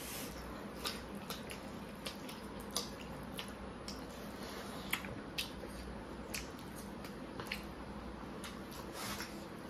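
Eating sounds of two people eating rice and curry by hand: soft, scattered wet smacks and squishes of chewing and of fingers working the food, over a faint steady background.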